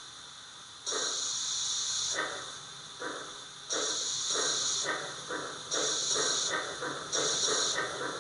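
Sound decoder in an O gauge GWR 0-4-2 tank locomotive model, playing steam chuffs through its loudspeaker as the loco accelerates from standstill. The chuffs start about a second in and quicken steadily, in time with the con rods, with intermittent bursts of steam hiss.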